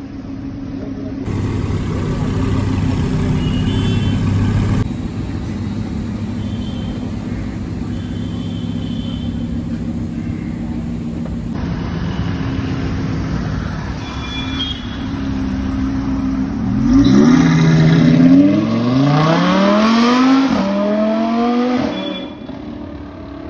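Audi R8 V10 with a Capristo aftermarket exhaust running steadily at low revs with a deep, even note. Then, from about three-quarters of the way in, it accelerates hard, the pitch climbing in three rising sweeps with a drop at each upshift, loudest during the acceleration.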